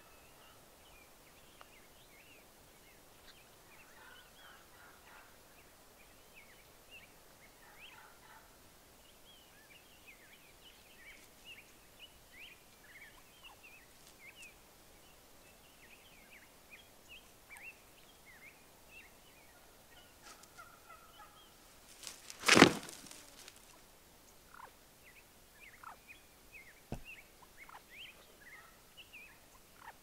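Gould's wild turkey gobbler gobbling once, loud and short, about two-thirds of the way through, over faint high chirping scattered throughout. A single sharp click comes near the end.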